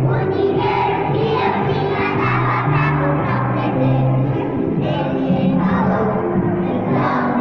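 A children's song playing with a bass line that steps from note to note and voices singing, over the noise of a room full of children.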